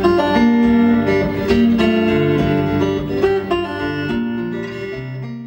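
Acoustic guitar picked in a slow blues-folk vein, single notes and chords ringing over one another, slowly fading toward the end.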